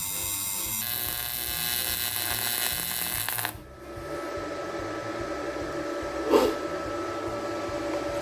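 AC TIG welder arc buzzing while welding aluminium, changing pitch slightly about a second in and cutting off abruptly a little under halfway through. A quieter steady hum follows, with one short knock about two-thirds of the way in.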